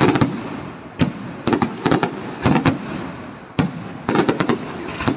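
Aerial fireworks shells bursting in a display: a dozen or so sharp bangs, some coming in quick clusters, each trailing off in a fading rumble before the next.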